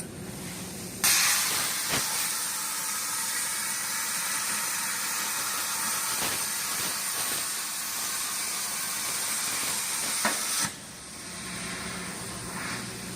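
CNC plasma cutter's torch arc firing with a sudden loud hiss about a second in, running steady for about ten seconds, then cutting off abruptly. A low steady hum runs underneath before and after.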